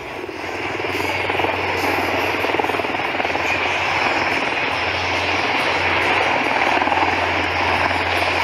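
Helicopter rotors and turboprop engines of an HC-130 tanker and two HH-60 Pave Hawk helicopters flying past together in refueling formation: a steady drone that builds over the first couple of seconds and then holds.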